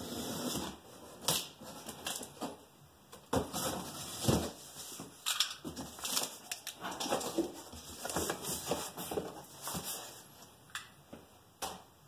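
Cardboard box being opened and unpacked: flaps bending, packaging rustling and crinkling, with irregular clicks and knocks, the sharpest a little over a second and about four seconds in.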